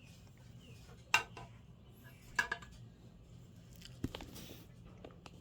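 Hard parts of a phone-holder clamp being handled and fitted together: three short clicks and knocks, about a second, two and a half and four seconds in, over faint rustling handling.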